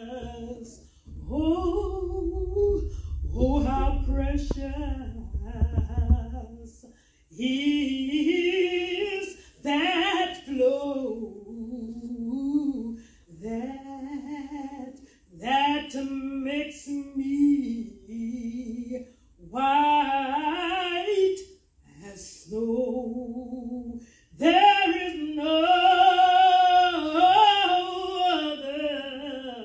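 A woman singing solo and unaccompanied into a handheld microphone, in long drawn-out phrases with held, wavering notes and short pauses between them. A low rumble sits under the first phrase.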